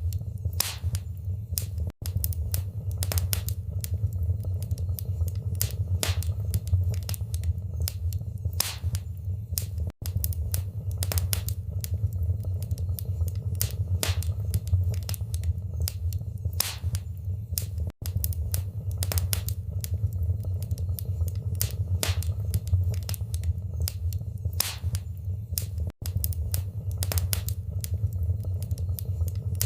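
Wood fire in a fireplace crackling: irregular sharp pops and snaps over a steady low rumble, with a very brief drop-out about every eight seconds where the loop repeats.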